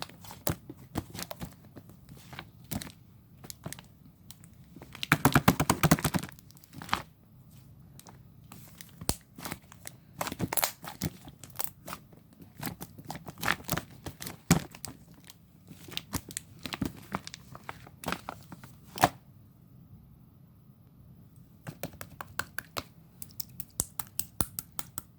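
Slime being pressed, folded and pulled by hand, giving a string of sticky clicks and pops with tearing sounds. There is a thick, loud run of pops about five seconds in, a short lull near the end, and then a fast run of clicks.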